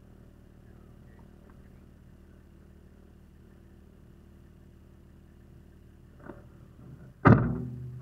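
The Land Cruiser troopy's diesel engine running quietly and steadily, then a single very loud thunk a little after seven seconds in that dies away over about half a second, with a small click just before it.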